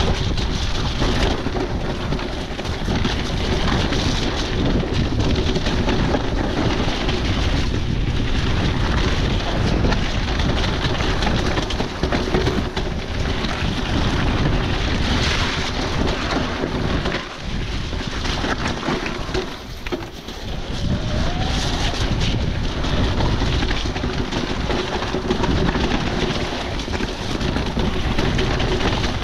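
Riding noise from an electric mountain bike descending a wet trail: wind rushing over the microphone, with tyre noise and rattle from the bike. Brief lulls come about 17 and 20 seconds in.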